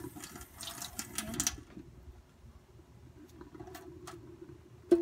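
Kitchen tap water running onto a makeup brush and into a stainless steel sink, shut off abruptly about a second and a half in. After it, a few small clicks and a sharper knock near the end, over a faint steady hum.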